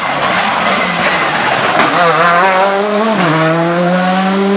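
Rally car engine under hard acceleration: its pitch climbs, drops sharply at a gear change about three seconds in, then pulls on again.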